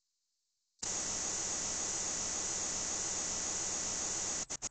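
Steady static hiss on a remotely streamed phone audio feed. It cuts in after a brief total dropout and breaks off in a few clicks near the end.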